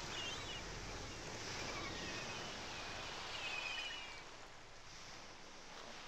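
Nature-sound ambience: an even, steady hiss with a few clusters of short, high bird chirps in the first four seconds. It grows a little quieter near the end.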